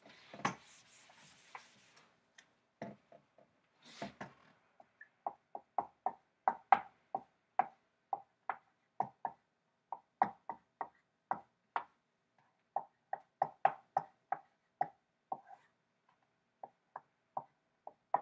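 A whiteboard being wiped for about two seconds, then a dry-erase marker writing on it: a long run of short, sharp strokes, a few each second, with short pauses between letters.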